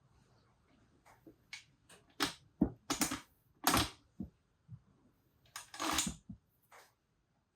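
Hand-assembly sounds at a workbench: a string of clicks and knocks from metal parts and tools, with three short scraping rustles, as a chain guide is fitted to a dirt-bike swingarm.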